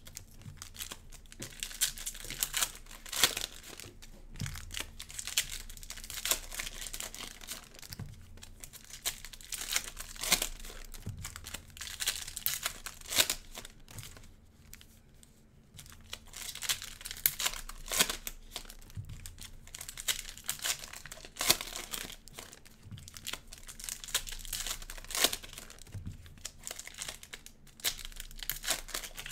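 Cellophane wrappers of Prizm basketball cello packs crinkling and tearing as the packs are ripped open. The irregular crackling thins out briefly about halfway through.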